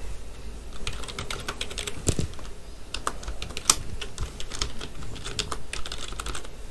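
Typing on a computer keyboard: a run of irregular keystroke clicks, a few of them louder than the rest.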